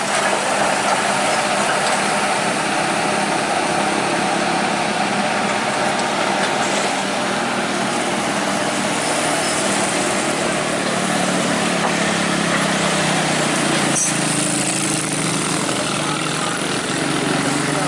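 Kobelco SK200 hydraulic excavator's diesel engine running steadily, mixed with road-traffic engine noise.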